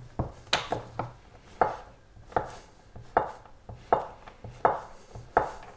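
Chef's knife chopping cheese into small cubes on a wooden cutting board: a sharp knock of the blade on the board about every three-quarters of a second.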